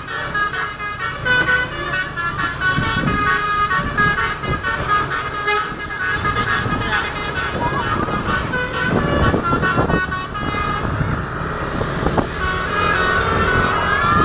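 Multi-tone basuri 'telolet' bus horn playing a fast melody of short stepped notes, over the rumble of vehicle engines.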